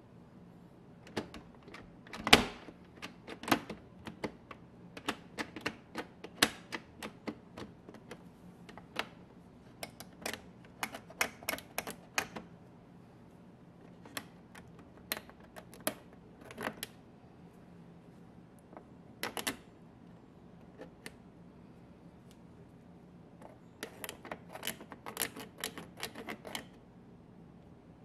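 Irregular sharp plastic clicks and taps from the push buttons of a Bosch dishwasher control panel as a toothpick picks food build-up out of the gaps around the sticking buttons. They come in bursts with pauses between, the loudest about two seconds in.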